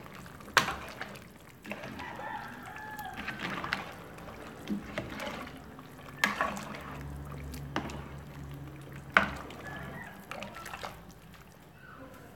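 A metal spoon stirring noodles in a metal pot of water, sloshing, with three sharp clanks of the spoon against the pot. A rooster crows in the background.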